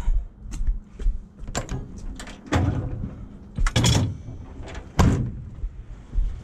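Side compartment doors on a utility van's service body being worked open and shut: a series of about five sharp knocks and latch clacks, the loudest near the middle and about five seconds in.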